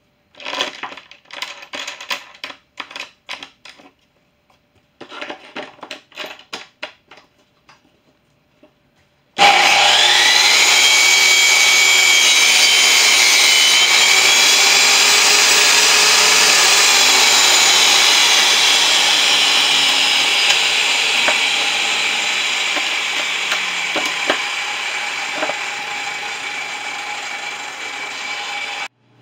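Light clicks and knocks of plywood pieces being handled on a saw table, then about a third of the way in a table saw starts with a short rising whine and runs loud and steady while cutting plywood on a crosscut sled. The sound slowly eases off in the last third and cuts off suddenly at the end.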